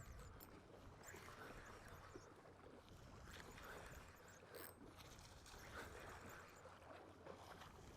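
Faint water lapping and swishing against a plastic fishing kayak's hull, in soft washes about once a second.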